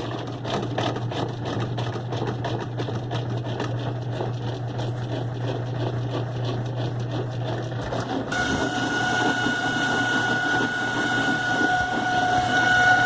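Kenmore 70 Series direct-drive washing machine running with a steady motor hum and a fast, even rattle. About eight seconds in, the hum gives way to a high whine that grows louder. The noise is one that may come from the water pump, which is suspected of being dirty inside.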